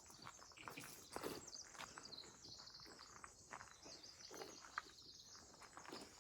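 Quiet forest ambience: light footsteps on a trail, with a small bird chirping high, strongest about two seconds in.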